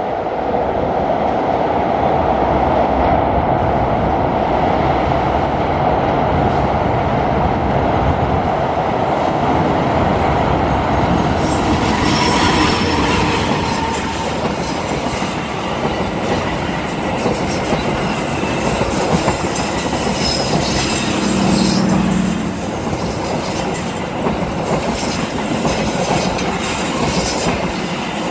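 Diesel locomotive hauling a passenger train, its engine running steadily as it approaches, then passing close by about twelve seconds in; after it, the coaches' wheels clatter past on the rails.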